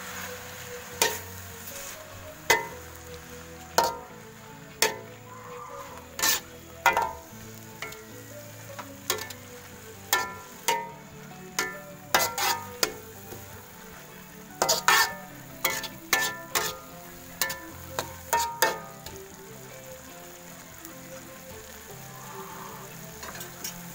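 Metal spatula clanking and scraping against a wok as spinach is stir-fried, over a steady sizzle. The clanks come about once a second and mostly stop about 19 seconds in, leaving the sizzle.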